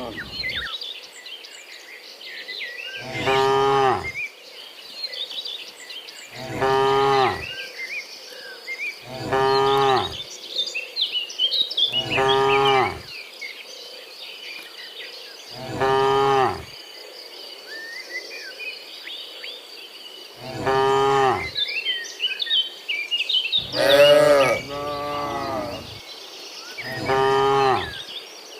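Cattle mooing over and over: about nine short moos a few seconds apart, two of them back to back near the end. A steady high insect trill runs underneath.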